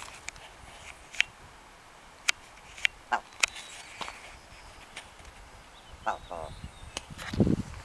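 Male willow ptarmigan calling at close range: a few short, sharp clicking notes, then a brief rapid rattling call about six seconds in. A low rumble comes near the end.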